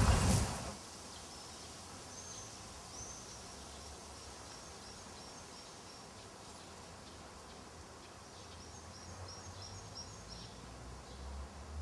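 Quiet outdoor ambience with small birds chirping in short, high calls, more of them near the end, over a faint low rumble that swells in the last seconds. A brief loud noise cuts off less than a second in.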